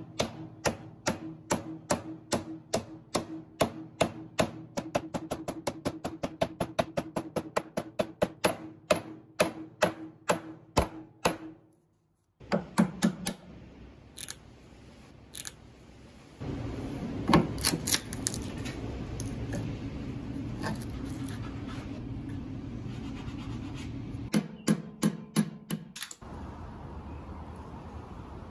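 Hammer driving nails into a wooden block: a quick, even run of sharp blows that speeds up and stops abruptly. After a short silence come a few taps, then a steady mechanical noise with two more short runs of quick knocks.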